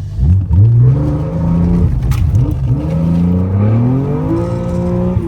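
A 1995 BMW E36 M3's S50B30 straight-six, running through a custom exhaust, revving hard under throttle. The revs flare sharply, dip, rise again, then climb steadily before easing off near the end, as the rear wheels break loose on the wet road.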